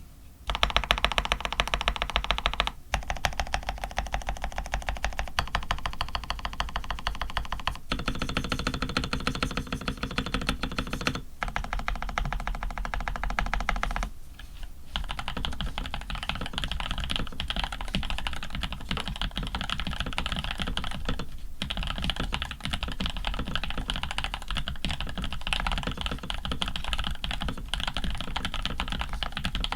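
Fast, continuous typing on a Rama U80 custom mechanical keyboard with lubed Creamsicles switches (TX films, Krytox 105 mix), PBT keycaps and an aluminium plate: a dense run of keystroke clacks with a few short breaks.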